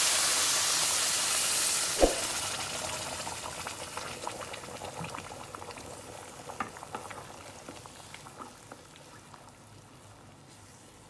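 Boiled water just poured onto rice and onion toasting in a hot pan, sizzling loudly and then fading steadily as the liquid settles into a boil. A wooden spoon stirs the pot and knocks sharply against the pan once about two seconds in, and small crackles and bubbling carry on, faint by the end.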